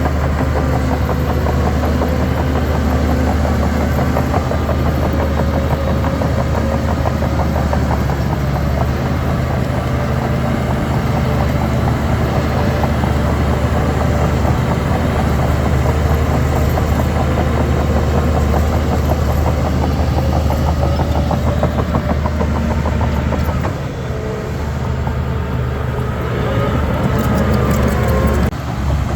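Heavy diesel earthmoving machinery running with a steady, deep engine note. About three-quarters of the way through it eases off briefly, then builds back up, and the sound changes abruptly just before the end.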